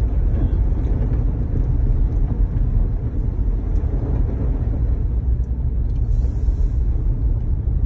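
Steady low rumble of a 2019 Jeep Grand Cherokee driving through snow, heard from inside the cabin, with engine and tyre noise on the snowy road. There is a brief hiss about six seconds in.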